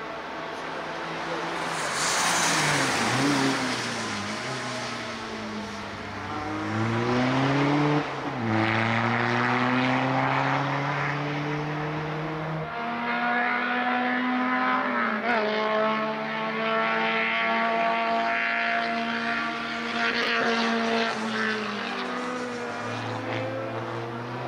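Škoda Fabia RS race car's engine revving hard under acceleration. The pitch climbs and drops back sharply at each of several gear changes.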